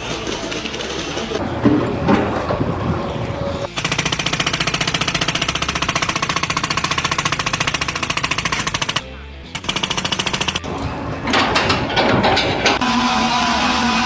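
Rapid, even mechanical hammering of a power tool, running for about five seconds, stopping for half a second, then running again for about a second. Other clatter and noise come before and after.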